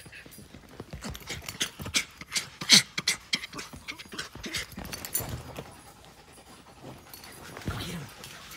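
Pet white-phase red fox making a quick run of short, breathy excited sounds, loudest about three seconds in. A rare bout of vocalising from a fox that seldom makes sounds.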